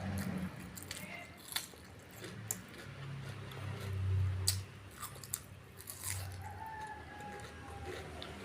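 A person chewing and biting crunchy food close to the microphone, with scattered sharp crunches over wet chewing.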